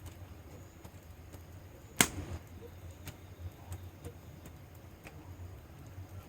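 Wood fire in a fire pit burning, with scattered faint crackles and one loud pop about two seconds in.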